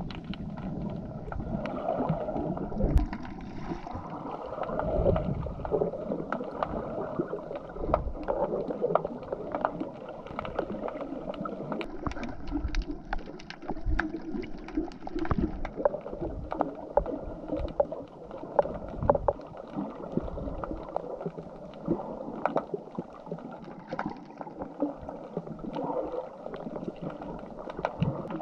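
Muffled water sloshing and gurgling as a snorkeller swims, with frequent small clicks and crackles throughout.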